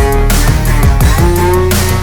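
Background music: an instrumental stretch of a heavy rap-rock track with a steady thumping beat, bass and guitar.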